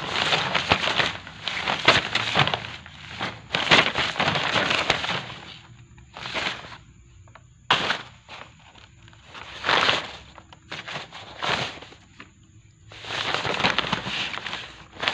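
Stiff paper rustling and crackling in bursts: dense for the first five seconds or so and again near the end, with a few separate rustles and one sharp crackle in between.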